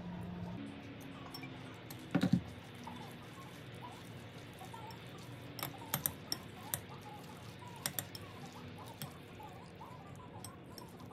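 A metal fork tossing sauced noodles in a glass mixing bowl: scattered sharp clicks and taps of the fork against the glass, the loudest cluster about two seconds in and more around the middle, with soft wet sounds of the noodles between them.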